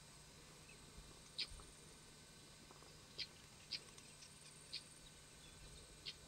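Quiet outdoor ambience with about five short, high chirps from a small animal, spaced irregularly from half a second to nearly two seconds apart, over a faint steady hum.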